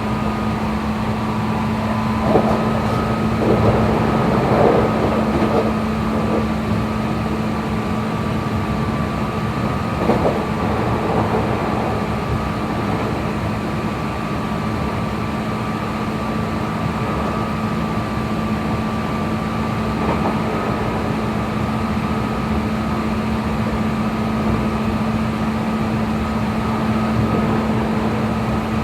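Hankyu 3300 series electric train running at a steady speed, heard inside the car: the motor and gear whine holds a constant pitch over the rumble of the wheels, with a few knocks from the rail joints early on and about ten seconds in.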